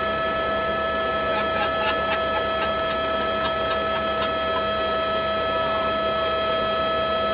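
Steady mechanical hum with a high whine held on one pitch, unchanging throughout, with a few faint ticks in the first half.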